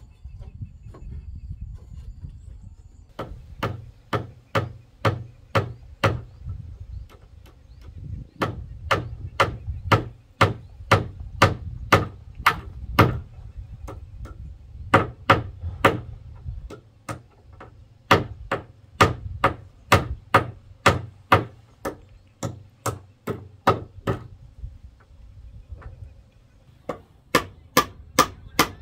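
Hammer driving nails into wooden boards: runs of sharp strikes about two a second, with short pauses between nails.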